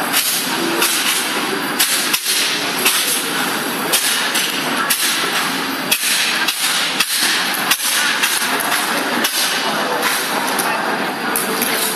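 A martial-arts staff swung and struck in a staff form, giving about a dozen sharp knocks and cracks at irregular intervals, over the steady din of a large sports hall.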